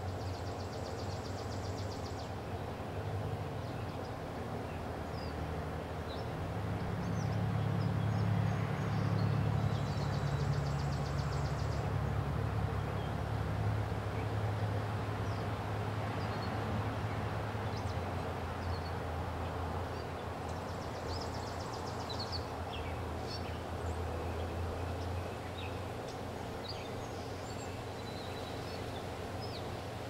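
Outdoor ambience: a steady low rumble that swells for several seconds in the middle, with scattered short high bird chirps.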